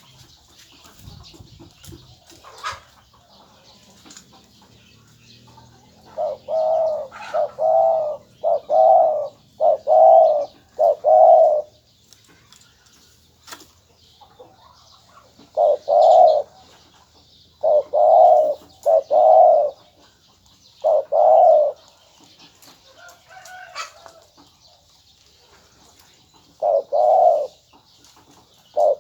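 A male spotted dove cooing in three phrases of short, deep coos, with pauses of several seconds between them. Its call is of the 'two-kook' type, with a middle-to-deep voice.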